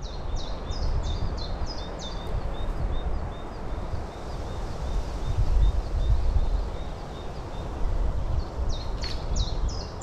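Gusty wind buffeting the microphone with a low, fluctuating rumble, and a small bird calling over it in a run of short chirps that fall in pitch, about two a second. The chirps fade out a few seconds in and start again near the end.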